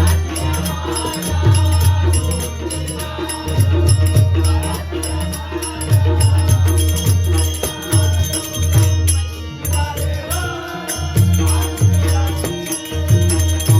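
Marathi bhajan music: voices chanting an abhang together over a steady beat of low hand-drum strokes and rapid, rhythmic strikes of small hand cymbals.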